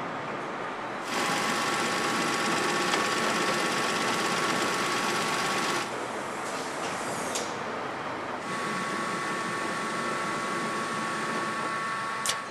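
BMW R 1200 GS boxer engine and gearbox being spun by a test rig's drive motor at around 1,800 to 2,600 rpm during an end-of-line test: a steady mechanical whir with a whine. It gets louder about a second in, drops back about six seconds in, and rises again around eight and a half seconds.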